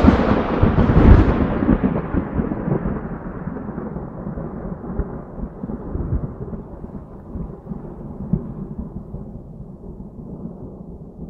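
Thunder-like rumbling sound effect: loudest in the first second or so with crackling booms, then a long rumble that slowly dies away.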